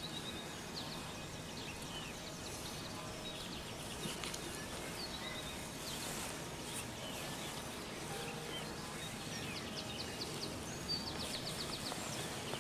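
Outdoor countryside ambience: several birds chirping, with a quick trill of rapidly repeated notes near the end, over a steady soft hiss.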